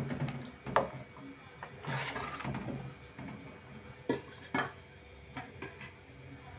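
A metal spoon stirring thin curry in a metal pan: wet sloshing and scraping, with a few sharp clinks of the spoon against the pan.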